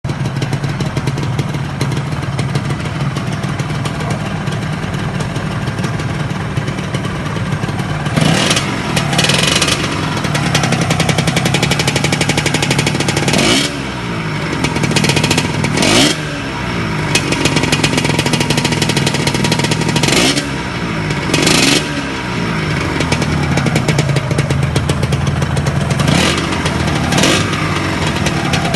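Yamaha RXZ's two-stroke single-cylinder engine idling steadily, then revved in short throttle blips about nine times, each rising sharply and falling back to idle, as it is set up after an overhaul.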